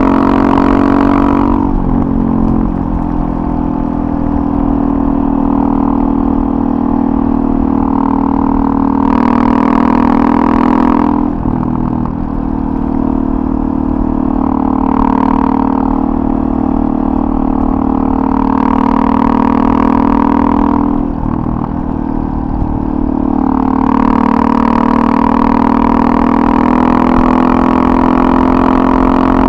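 A 2009 Suzuki DRZ400SM's single-cylinder four-stroke engine running through a full FMF Powercore 4 exhaust while riding at a steady pace. The engine note dips and picks up again three times.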